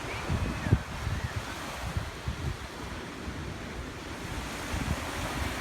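Ocean surf washing on the beach, with wind buffeting the microphone in uneven low gusts.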